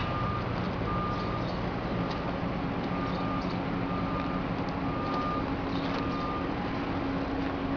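Electronic warning beeper sounding a steady high beep about once a second, each beep about half a second long, over a constant low hum.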